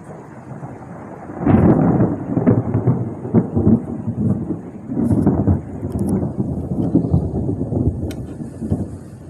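Thunder rumbling: it breaks in loudly about a second and a half in, then rolls on in uneven surges and fades near the end.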